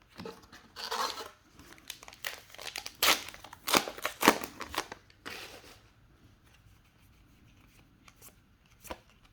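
Flesh and Blood trading cards being flicked through by hand: a run of dry sliding swishes and snaps of card on card for about five seconds, then only a few faint clicks.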